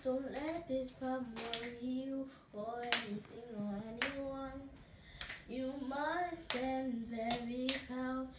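A girl singing a song unaccompanied, holding and sliding between notes, with a sharp clap about once a second.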